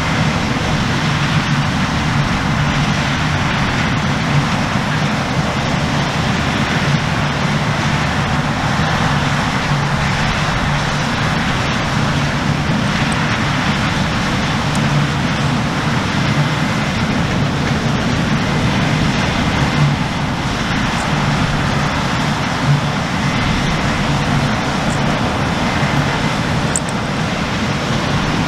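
New Holland CR1090 combine harvester working in standing crop, its big six-cylinder diesel and the threshing machinery running under load as one steady drone.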